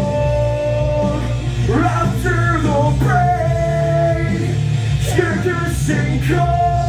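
Male rock vocal sung into a handheld microphone over loud rock music, with long held notes.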